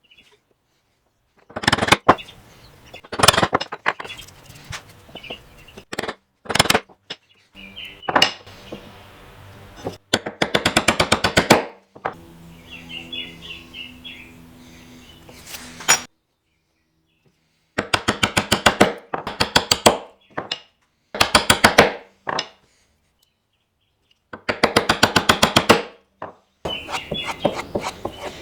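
Hand tools working walnut for a bow tie inlay: a few sharp knocks about two and three seconds in, then repeated bursts of rapid strokes on the wood, each lasting a second or two with short pauses between.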